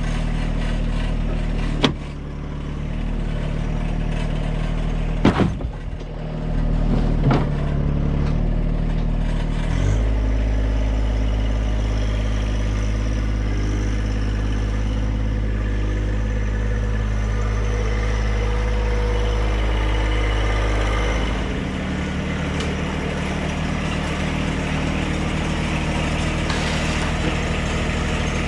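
Compact tractor engine running steadily, speeding up about ten seconds in and settling back to a lower speed near the two-thirds mark, with a few sharp clunks early on as the loaded pallet forks work.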